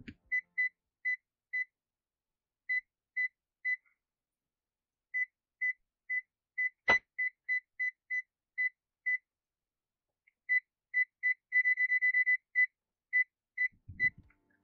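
GVDA GD120B digital multimeter in non-contact voltage (NCV) mode beeping as it picks up the electric field of a live mains cable: short, high beeps in irregular groups that speed up into a fast string near the end. A single sharp click about seven seconds in.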